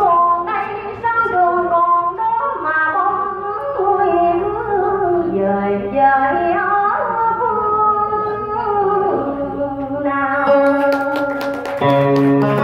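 A woman singing a slow Vietnamese song into a microphone, her voice holding and bending long notes over little else. About ten seconds in, strummed guitar chords join, and a low accompaniment note comes in near the end.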